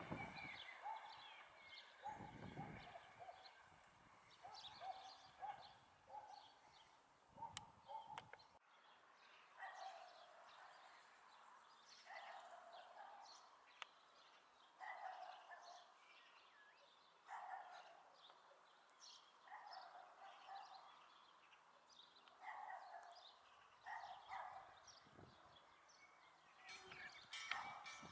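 Near silence: faint outdoor ambience with a distant animal calling over and over, short calls every second or two. A high steady hiss cuts off suddenly about a third of the way in.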